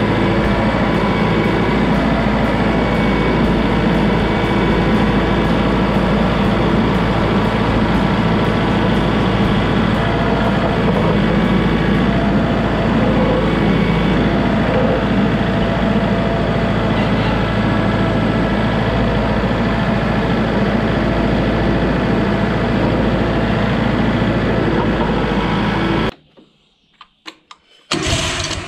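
Kubota MX5200 tractor's diesel engine running steadily under way. Near the end it cuts out abruptly, a few clicks follow, and the sawmill's Kohler Command PRO 19 engine begins to crank.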